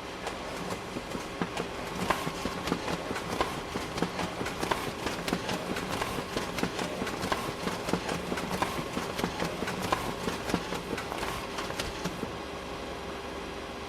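Office printer running a print job: a clattering run of mechanical clicks over a steady hum, starting just after the start and stopping about two seconds before the end.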